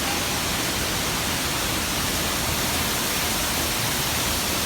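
Waterfall pouring in a steady, unbroken rush of water.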